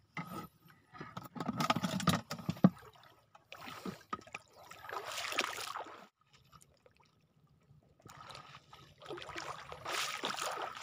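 Shallow seawater sloshing and splashing, in a stop-start way, as someone wades through it. Rustling and knocking come in the first few seconds, with a sharp knock near three seconds, and there is a quiet gap of about two seconds before the sloshing picks up again.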